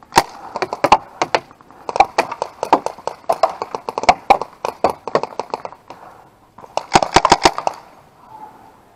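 Paintball markers firing: a rapid exchange of sharp pops, several a second, with a fast string of shots about seven seconds in.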